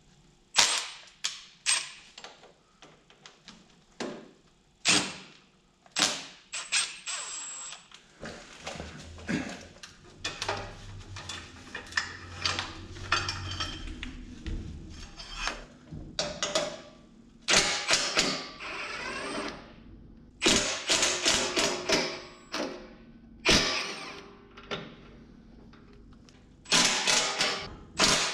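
Sharp metallic clinks, knocks and scrapes of hand tools as the battery terminals are undone and the battery is worked out of a John Deere 425 garden tractor's front frame, with a low rumble as it slides out. Short bursts of a cordless drill come near the end.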